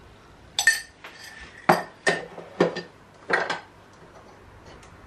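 A metal spoon clinking against a glass sugar jar and a ceramic bowl as sugar is spooned out and the spoon is set down. There are about six sharp clinks spread over three seconds.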